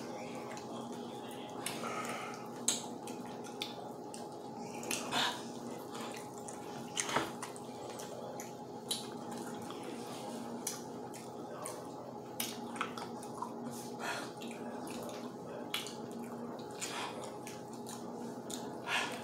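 Close-up eating sounds from fried chicken: irregular wet clicks of chewing and lip smacking, with fingers pulling at the meat, over a steady background hum.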